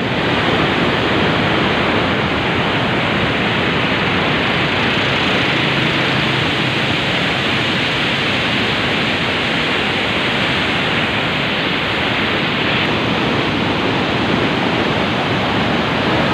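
Floodwater rushing through the open gates of a river barrage: a loud, steady rush of churning water.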